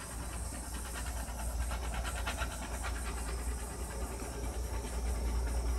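Small handheld heat gun blowing steadily, a continuous airy hiss over a low motor hum, held close to wet acrylic paint to raise cells.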